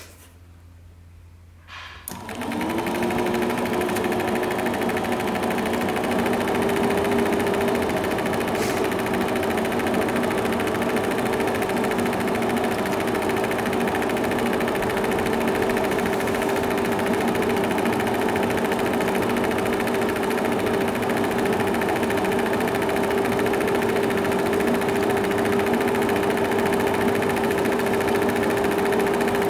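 Home-movie film projector starting up about two seconds in, its motor hum rising in pitch as it comes up to speed, then running steadily with a mechanical whirr.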